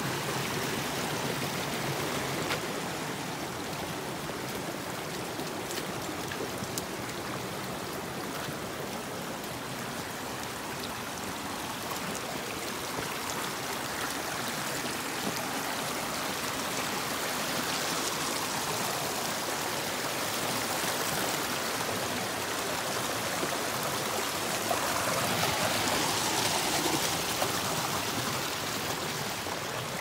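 Small rocky mountain stream, swollen after heavy rain, rushing and splashing over stones and little cascades in a steady wash of water. It grows somewhat louder in the latter part.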